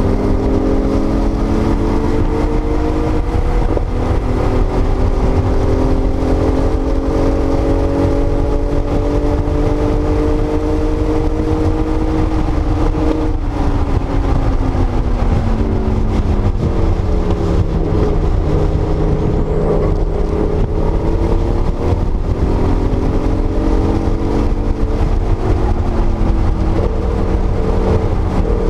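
1979 Porsche 930 Turbo's air-cooled turbocharged 3.3-litre flat-six running hard, heard from inside the cabin: the engine note climbs for about the first twelve seconds, drops away, then rises and falls again, over a heavy low rumble.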